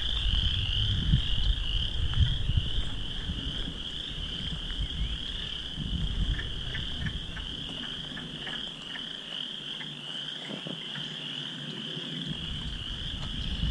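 A dense chorus of many small frogs calling together from swampy water, a continuous high, pulsing trill with no gaps. A low rumble sits underneath in the first half and fades away about two-thirds of the way through.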